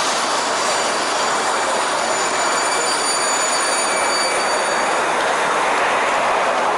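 Steady roar of heavy city street traffic, with a faint high-pitched whine from about a second in until about five seconds in.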